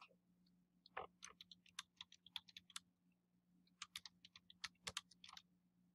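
Faint typing on a computer keyboard: a run of keystrokes about a second in, a short pause, then a second run near four seconds.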